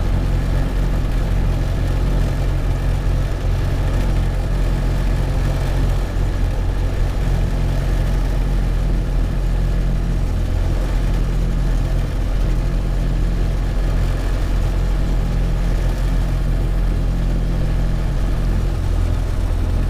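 Hi-Max ultralight airplane's engine and propeller droning steadily in flight, heard from inside the cockpit.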